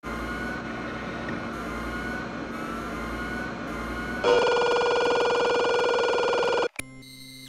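Electronic interface sound effects for a transmission starting up: about four seconds of hissing static with faint, repeated rising whistles, then a loud, steady electronic buzzing tone that cuts off suddenly after about two and a half seconds. A click and quieter electronic tones follow near the end.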